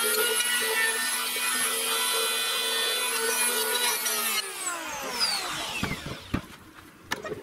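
Electric hand planer running at full speed as it is pushed along a wooden board, a steady high motor whine with the hiss of the cutter. About four and a half seconds in it is switched off and its whine falls away over a second or so, followed by a few light knocks as it is set down.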